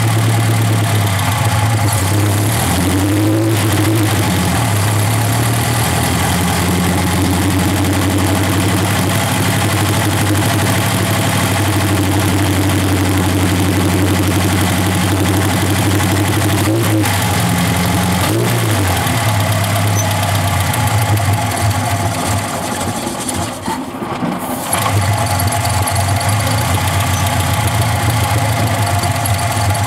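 Chevrolet Chevette's four-cylinder OHC engine idling steadily, with a few short blips of the throttle. About three quarters through the engine speed sags briefly, then settles back to idle.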